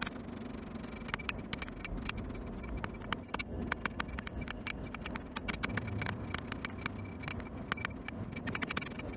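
Hammer blows on hot steel over an anvil, several a second in uneven runs, each strike leaving a short metallic ring, over a steady low rush.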